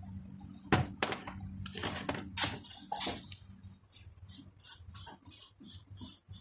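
Alternator parts handled with a sharp knock under a second in, then, from about four seconds in, a regular run of short scraping strokes, about three a second: emery paper rubbing the copper slip rings of the alternator rotor clean.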